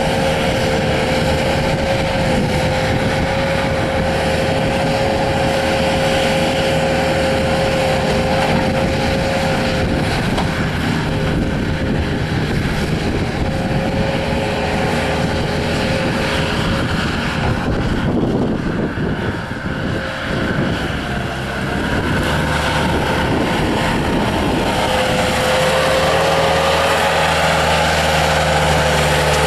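Bobcat S300 skid steer loader's diesel engine running hard while the machine is driven and worked, with a steady whine over the engine. The sound dips and roughens about eighteen seconds in, then settles into a steadier engine note near the end.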